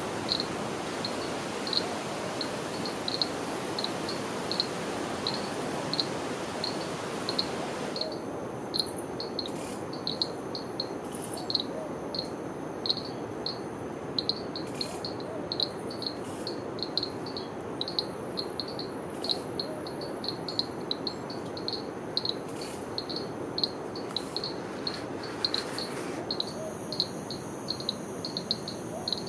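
A cricket chirping in a steady, even rhythm of about two to three short high chirps a second, over a steady low background hiss.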